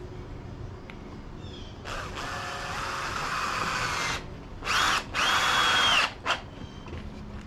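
Power drill run into a wooden board in bursts: one run of about two seconds, then a short burst and a second run of about a second, its motor whine rising as it spins up.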